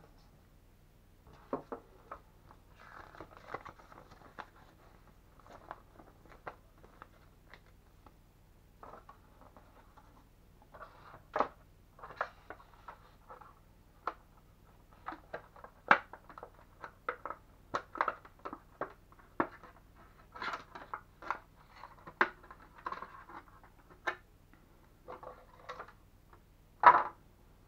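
Unboxing handling noise: a cardboard box and its inner tray rustle and scrape, with scattered clicks and taps as a Hobbywing FlyFun HV 130A speed controller and its wires are lifted out. A sharper knock comes near the end.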